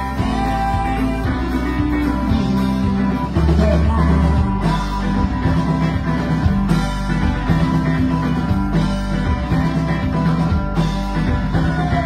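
A rock band playing live: banjo, electric guitar and drums going together, loud and steady throughout.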